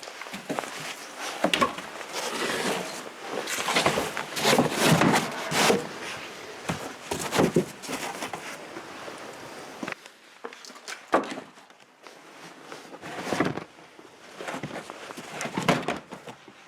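Hands working on car trunk trim: irregular rustling and scraping of plastic panels, with clicks as the fasteners are turned and set. It is busiest in the first half, with a lone sharp click about eleven seconds in.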